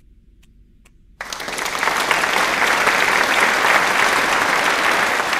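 Applause that starts abruptly about a second in, after a few faint single claps, and then goes on steadily as a dense clapping.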